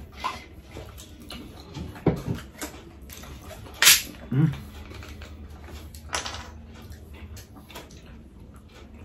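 Eating and drinking sounds at a table: scattered mouth and handling noises, with a short sharp hiss about four seconds in as a plastic Coca-Cola bottle is unscrewed, followed by a low knock.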